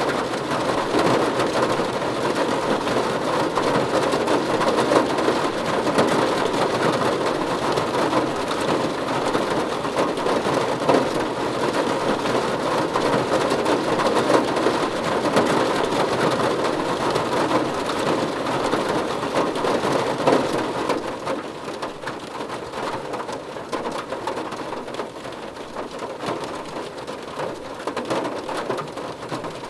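Rain falling steadily, a dense patter of drops on a surface. About two-thirds of the way through it eases and becomes a little quieter.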